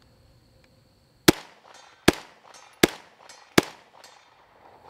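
Four shots from a Grand Power Stribog SP9A3 roller-delayed 9mm carbine, fired at a steady pace about three quarters of a second apart, each sharp report trailing off in an echo.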